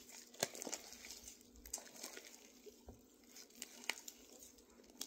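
Fluffy shaving-cream slime being squished and kneaded by hand, giving faint, scattered crackles and clicks.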